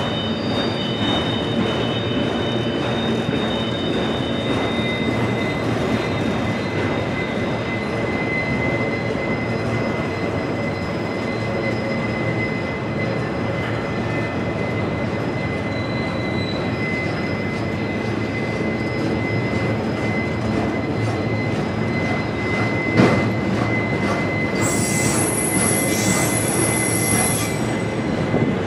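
Autorack freight cars rolling past at close range: a steady rumble and clatter of wheels on rail, with a thin, steady wheel squeal. About 23 seconds in there is one sharp bang, followed by a higher, shriller squeal for about three seconds.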